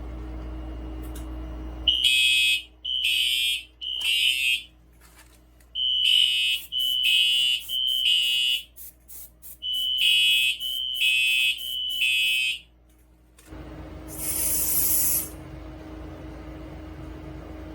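Fire alarm horn sounding the temporal-three evacuation pattern: three short, high beeps, then a pause, repeated three times. Near the end there is a short hiss.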